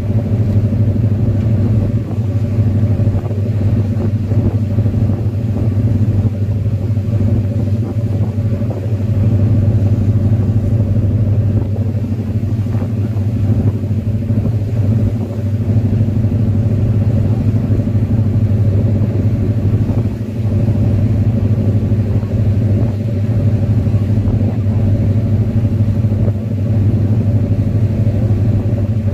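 Tour boat's engine running at a steady pace, a constant low drone with a deep hum that never lets up.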